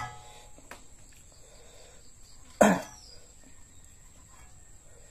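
One short, cough-like burst from the eater about halfway through; otherwise quiet room tone with faint small noises.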